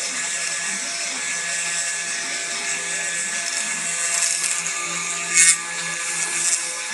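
Desktop CNC engraving router milling a wooden plaque: the spindle runs steadily as the bit cuts the wood at a feed rate of 600. A brief louder burst comes about five and a half seconds in.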